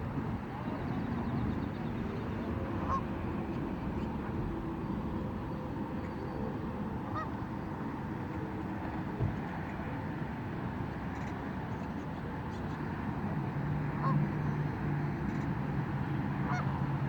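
Geese honking now and then over a steady background hiss. A low steady hum comes in near the end.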